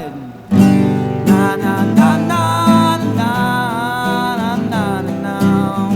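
A band playing, led by strummed guitar with a bending melody line over it. A falling glide cuts out into a short break at the start, and the full music comes back in with a loud strum about half a second in.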